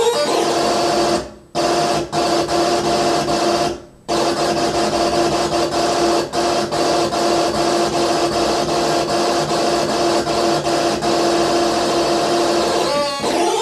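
Hand-built circuit-bent noise machine putting out harsh, buzzing electronic noise over a steady drone, with a fast stutter running through it. It cuts out briefly twice in the first few seconds while its switches and knobs are worked.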